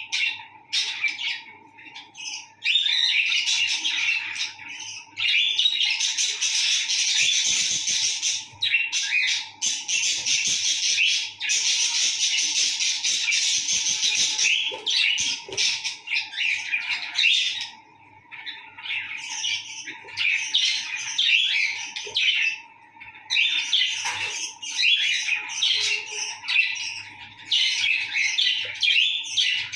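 Budgerigars chattering and warbling in long runs of fast, high chirps and squawks, with a couple of short pauses. A faint steady hum runs underneath.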